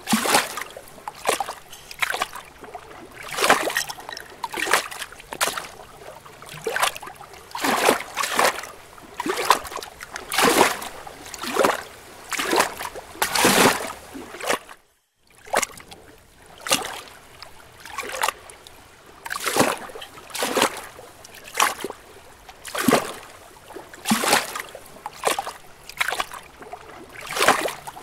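Pool water splashing and sloshing against a waterproof 360-camera housing held at the surface, in repeated short surges about once a second. The sound cuts out for a moment about halfway through.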